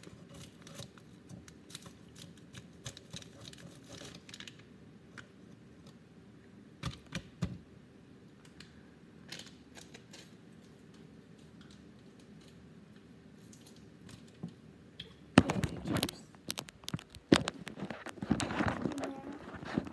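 Faint crinkling and small clicks of plastic freezer-pop tubes being squeezed into a blender cup. From about three-quarters of the way through come loud knocks and rubbing as the phone recording is picked up and handled.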